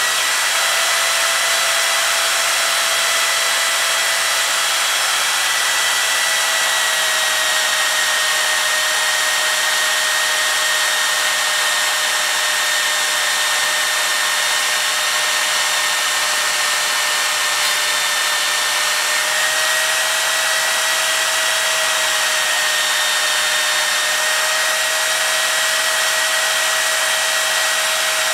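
Milwaukee portable bandsaw running with a steady motor whine while its blade cuts a bar of 3/16-inch O1 tool steel. The pitch sags slightly about seven seconds in and shifts again later as the blade is fed into the steel.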